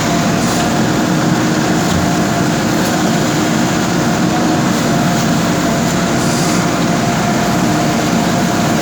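A JCB backhoe loader's diesel engine running steadily at an even pitch, with no revving up or down.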